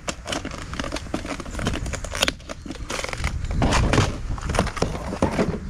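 Irregular crackling and clicking from hands handling fishing tackle while a jumping jig is rigged with an assist hook.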